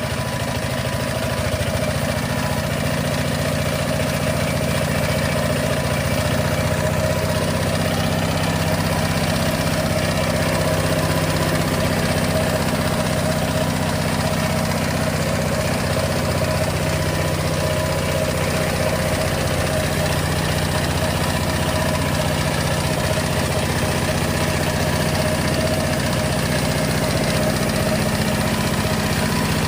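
Power tiller's diesel engine running steadily at idle after being started, growing a little louder over the first few seconds and then holding an even note.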